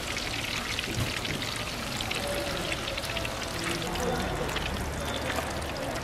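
Hot oil sizzling and crackling steadily around battered vegetable tempura deep-frying in a wide pan.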